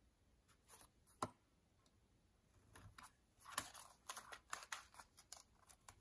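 Faint ticks and scratches of a craft knife and fingertips working washi tape on a paper planner page: one sharp tick about a second in, then a quick run of light ticks and scrapes over the last couple of seconds.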